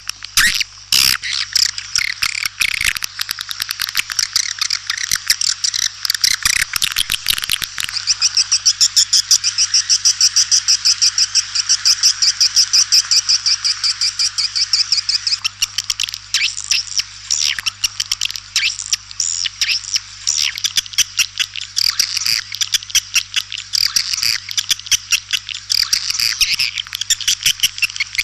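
White-nest swiftlets chattering in rapid, overlapping trills of clicks, with one even, fast buzzing trill from about 8 to 15 seconds. This is a swiftlet call recording of the kind played to lure the birds into a nesting house, over a faint steady low hum.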